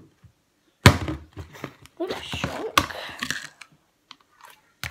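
A plastic slime tub being handled: a sharp knock about a second in, then a couple of seconds of crinkling and crackling of the plastic and slime, and a short click near the end.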